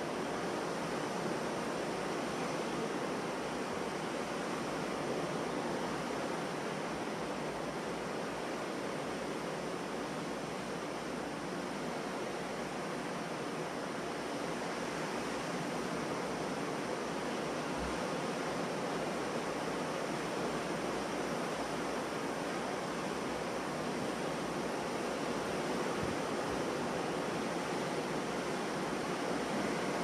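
Ocean surf washing onto a beach: a steady, unbroken rush of waves with no separate crashes standing out.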